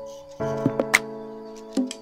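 Background music: a sustained chord comes in about half a second in and fades, with a sharp snap-like beat about once a second.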